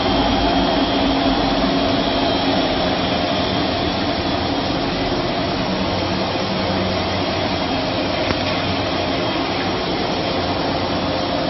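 Aluminium alloy rod rolling and wire drawing machine running: a loud, steady mechanical drone with several constant hum tones from its motors and rolls.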